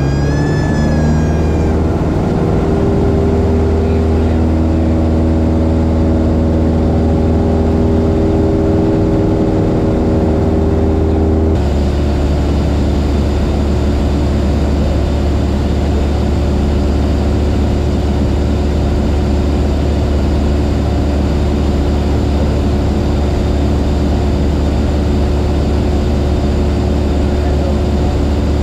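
Light airplane's piston engine and propeller, heard from inside the cockpit. It rises in pitch over the first second as power comes up, then runs steadily. About eleven seconds in the tone shifts slightly and settles again.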